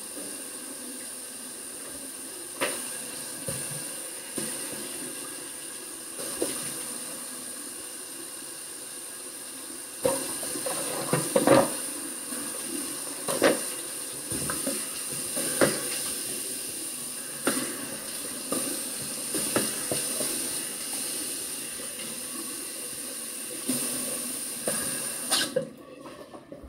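Bathroom sink tap running steadily, with scattered light knocks and clatters at the sink; the water shuts off near the end.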